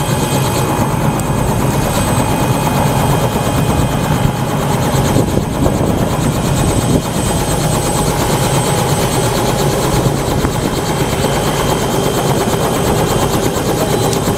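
Robinson R66 helicopter running on the ground with its main rotor turning: a steady, loud engine whine and rotor noise that holds unchanged throughout.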